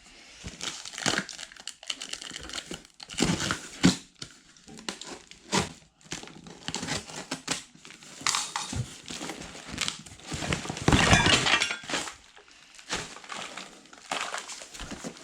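A small cardboard box being opened and its hardware packaging handled: irregular rustling, crinkling and crunching, with the longest, loudest stretch of crinkling about eleven seconds in.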